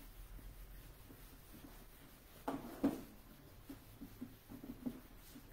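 Whiteboard eraser rubbing across a whiteboard, faint, with two louder short strokes near the middle.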